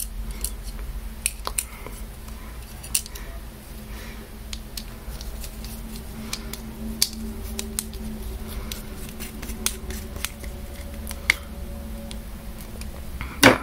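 Irregular small metallic clicks and taps of a screwdriver turning a screw into a VEX metal C-channel as the parts are handled, over a faint steady hum.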